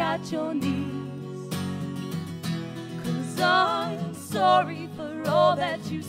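Live acoustic folk-pop song: two steel-string acoustic guitars strummed, with women's voices singing the melody.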